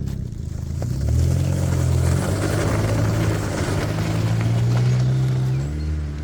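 Outboard motor of an inflatable boat running, picking up revs about a second in and shifting in pitch as it goes.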